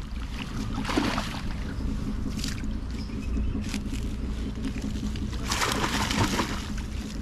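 Water splashing and sloshing as a wet fishing net is hauled out of a shallow channel, with a short surge about a second in and a longer, louder one near the end, over a steady low hum.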